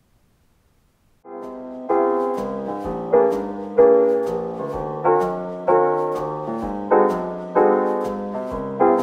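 After about a second of near silence, background piano music starts, quietly at first and then fuller about two seconds in.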